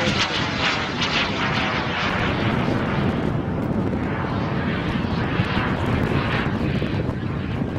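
Single turbine engine of a radio-controlled jet flying past at high speed, a steady rushing jet noise. Its high, hissing part thins out about three seconds in as the plane moves away.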